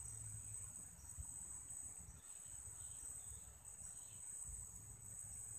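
A steady, high-pitched insect chorus shrilling without a break, with a low rumble underneath.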